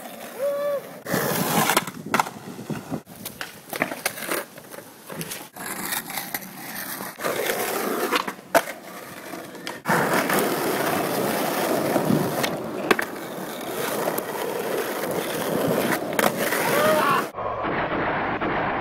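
Skateboard wheels rolling over concrete, broken by many sharp clacks and bangs of the board hitting the ground. Near the end the sound cuts abruptly to a dull, muffled old film soundtrack.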